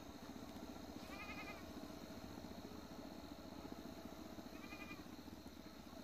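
A goat bleating faintly twice, a short quavering call about a second in and another near the end, over steady low outdoor background noise.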